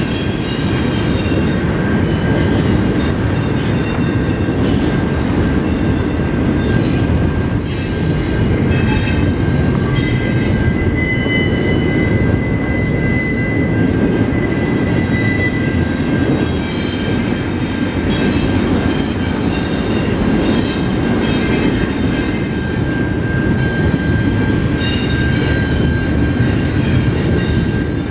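A train rolling past close by: a loud, steady rumble of steel wheels on rail, with high wheel-squeal tones riding over it, one ringing out from about a third of the way in to past the middle.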